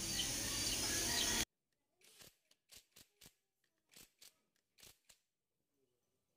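A few faint, separate metallic clicks of a 10 mm socket and cordless driver working the clutch-holder bolts on a motorcycle clutch. Before them, about a second and a half of steady background hiss that cuts off suddenly.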